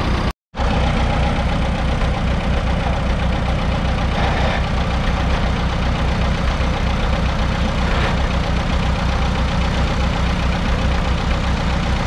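1937 Allis-Chalmers M crawler's 4.9-litre four-cylinder petrol/TVO engine running steadily with an even low beat. The sound cuts out for a moment about half a second in.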